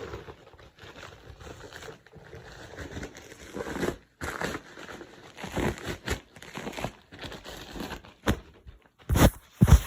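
Packaging being handled and opened: irregular crinkling, rustling and tearing of wrapping, with two loud bumps near the end.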